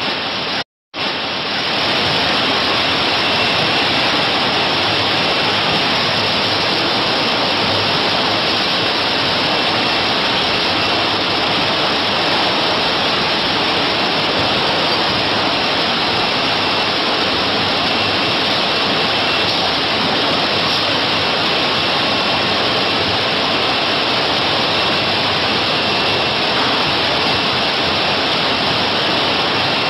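Steady rushing machinery noise from a chocolate production line's conveyor belts and equipment running, with a faint high steady whine over it; it cuts out briefly just under a second in.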